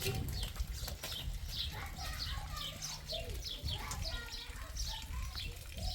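Small birds chirping over and over: short, high, downward chirps about twice a second, over a steady low rumble.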